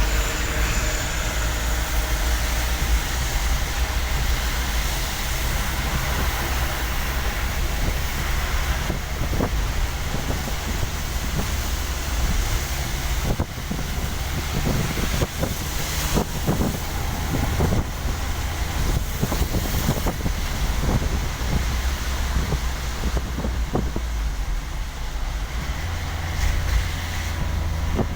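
Steady road and engine noise of a vehicle driving on a wet, rain-slick highway, with a low rumble and tyre hiss. Scattered short clicks and knocks come in the middle stretch.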